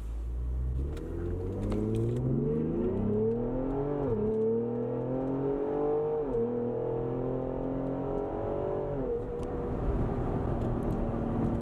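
Ford Explorer ST's twin-turbo 3.0L EcoBoost V6, fitted with a Borla ATAK exhaust, under hard acceleration: the engine note climbs through the gears, with three upshifts about four, six and nine seconds in, then settles into a steady cruise.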